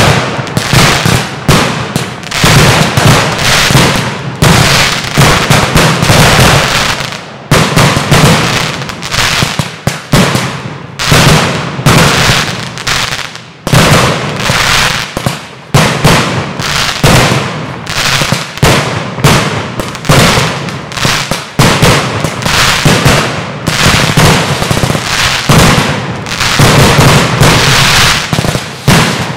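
Professional fireworks display: aerial shells launching and bursting in a rapid, nearly unbroken barrage of loud bangs, easing off just before the end.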